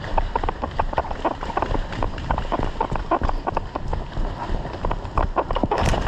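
Running footsteps, quick and regular, with the runner's kit jostling, becoming a louder rush of noise near the end.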